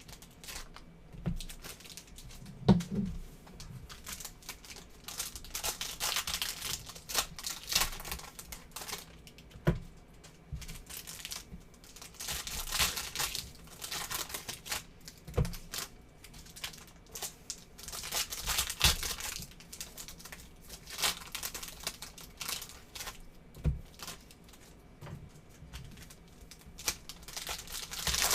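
Plastic wrapping on a sports-card box and its packs crinkling and tearing as it is opened by hand, with scattered clicks and knocks of cardboard being handled.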